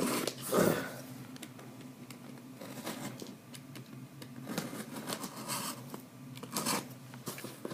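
A blade slitting the packing tape on a cardboard shipping case, in short scraping strokes, with cardboard rustling and scratching between them.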